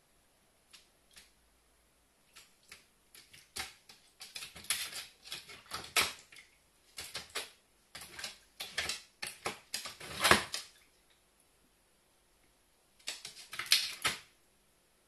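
A carrion crow pecking at and shoving a thin, flat clear plastic tray, its beak and claws setting the plastic clicking and clattering in bunches of rapid taps. The loudest clatter comes about ten seconds in, and a last bunch follows after a pause near the end.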